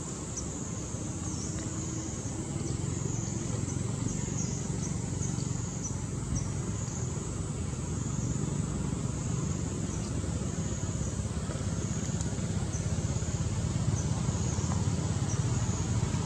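Steady outdoor background noise: a low rumble under a constant high-pitched hiss, with faint short chirps now and then.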